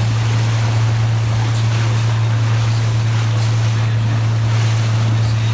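Boat under way: a steady, unchanging low engine drone with wind and rushing water noise over it.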